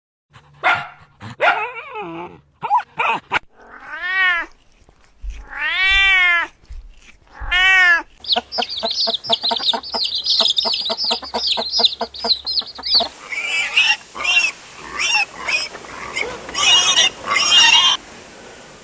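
A run of different farm animal calls, one recording after another, including a cat meowing three long times, each call rising and then falling, followed by a fast rapid run of repeated calls and a busier stretch of overlapping calls.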